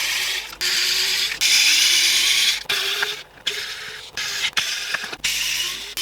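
Xiaomi Mijia precision electric screwdriver with metal gears running in short bursts, about one a second. Each burst starts with a rising motor whine and is followed by a gritty whirr of gears and bit turning.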